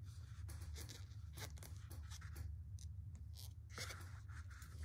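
Faint scratchy rustling of yarn being worked with a metal crochet hook: small irregular scrapes and rubs, a little fuller just before the end, over a steady low hum.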